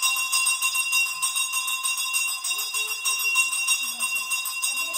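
Temple bells ringing rapidly and without pause during an aarti. The strokes run together into one dense metallic ring.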